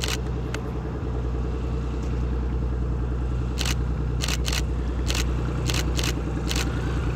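Navion's single piston engine running at taxi power as the plane rolls past, a steady low propeller-engine drone that swells slightly in the second half. A quick string of camera shutter clicks sounds over it from about three and a half seconds in.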